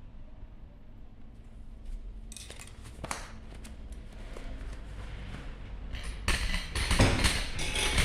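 Metal tools and scooter parts being handled during wheel removal: scattered light clicks and knocks, then a louder stretch of scraping and rattling in the last two seconds.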